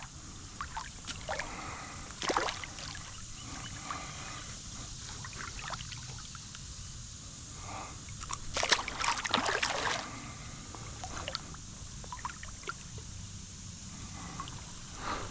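Creek water trickling and sloshing, with short splashes and a louder burst of splashing about nine seconds in.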